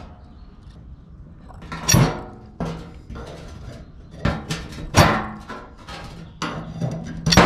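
A series of sharp knocks on wood, about five, with the loudest about five seconds in and near the end: sticks and fat wood being handled or struck.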